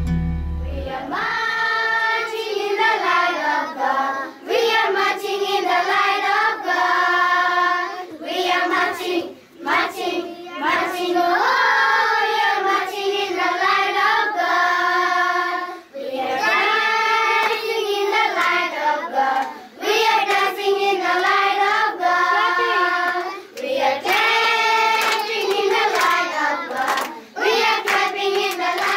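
A group of children singing a song together in unison, in phrases of about two seconds with short breaths between them.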